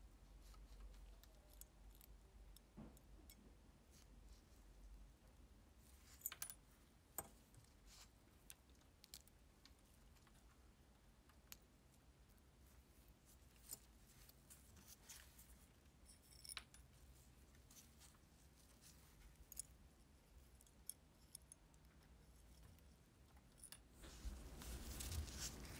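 Faint, sparse small metallic clicks and ticks as the parts of a brass trench lighter are handled and picked at, over near silence. About a second before the end a soft rustling scrape begins as old cotton wadding is drawn out of the lighter's fuel tube.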